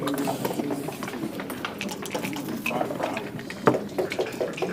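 Backgammon checkers and dice clicking and clacking on the board during play, with one sharper knock about three and a half seconds in, over a murmur of voices.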